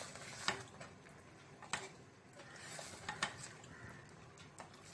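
Wooden spoon stirring a thick rice-and-dal mash in a pressure cooker pot: soft scraping and squelching with about four light knocks of the spoon against the pot.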